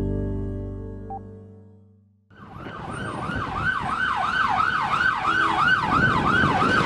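A logo chime rings and fades over the first two seconds. After a brief gap, an ambulance siren starts in a fast yelp, sweeping up and down nearly three times a second, over street traffic noise.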